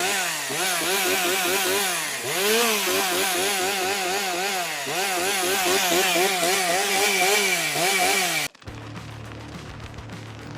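Chainsaw engine running hard, its pitch wavering up and down several times a second. About eight and a half seconds in it cuts off suddenly, leaving a much quieter steady low hum.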